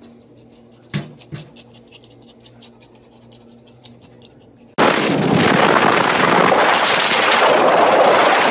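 Loud steady rushing noise that starts abruptly about five seconds in and cuts off suddenly at the end. Before it, a faint low hum with one sharp knock about a second in.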